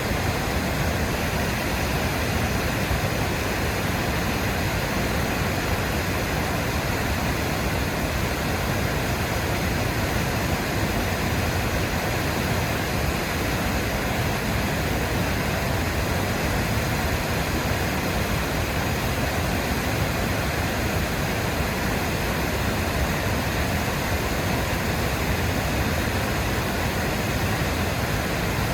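Waterfall: a steady rush of falling, splashing water, even and unbroken throughout.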